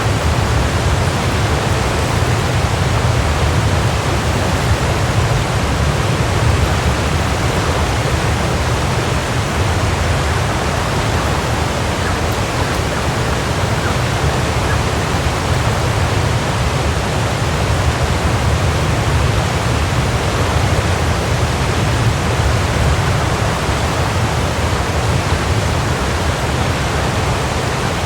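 Waterfall: a steady, unbroken rush of falling water, deepest and strongest in its low rumble.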